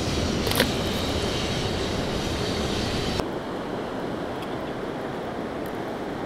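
Steady rushing of flowing river water mixed with wind on the microphone, with one short sharp sound about half a second in. About three seconds in the rushing suddenly becomes quieter and duller.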